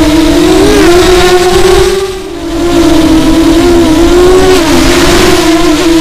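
Nighthawk 280 FPV quadcopter's motors and propellers whining, heard close up from the camera on the quad, the pitch wobbling up and down as the throttle shifts. About two seconds in the whine dips briefly, then comes back.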